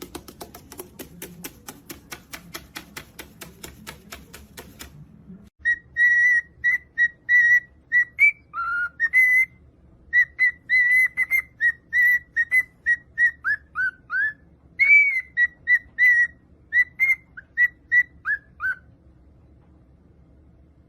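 A fast run of even clicks, about five a second, for the first few seconds. Then a pet bird whistles a long string of short, high notes, several to a second, some of them falling in pitch, until they stop near the end.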